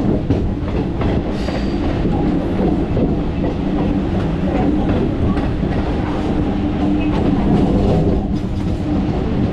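Chennai suburban electric multiple-unit train running at speed, heard from its open doorway: a steady rumble of wheels on the rails with a few faint clicks.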